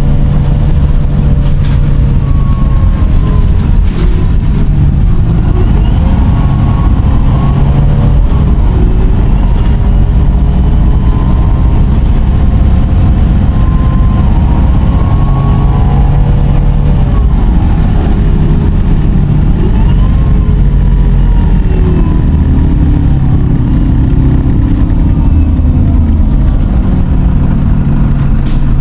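Irisbus Citelis Line city bus standing with its diesel engine idling and its cooling fan running strong. A loud whirring whine slowly rises and falls in pitch over a steady engine hum.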